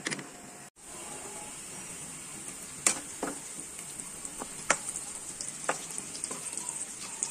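Sliced onions and whole spices frying in hot oil in a pan, sizzling steadily. A metal slotted spatula scrapes and clicks against the pan now and then, sharpest about three and almost five seconds in. The sound drops out briefly just under a second in.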